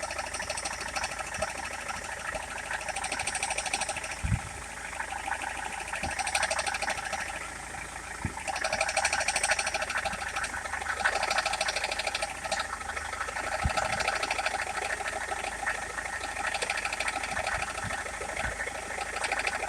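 Rover 75 engine idling under an open bonnet with a fast, light tapping that swells and eases in stretches as the steering wheel is turned back and forth, the load of turning bringing the tap on.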